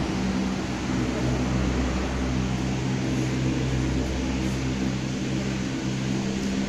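Cable car running: a steady low mechanical hum with several unchanging tones.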